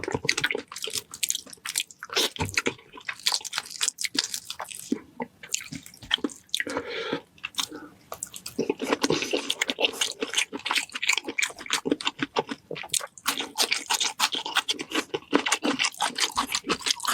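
Close-miked eating of spicy seafood: a steady run of wet chewing, smacking and crunchy bites.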